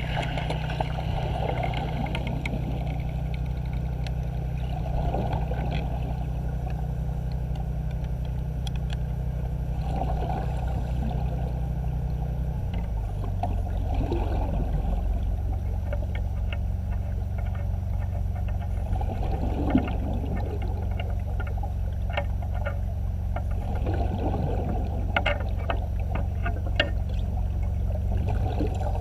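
A steady low mechanical hum that changes its pitch pattern about halfway through, with irregular watery gurgles and scattered short clicks over it.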